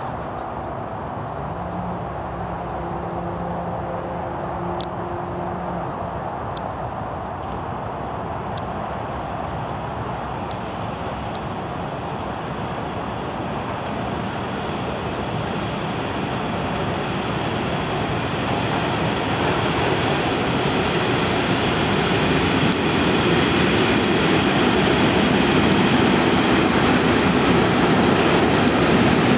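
Electric locomotive hauling a container freight train on approach: a steady rumble and hiss of wheels on rail that grows louder through the second half, with faint sharp ticks now and then.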